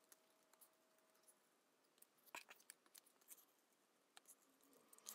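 Faint snips of scissors cutting around a small circle of paper: a few scattered sharp clicks, most of them between about two and three and a half seconds in.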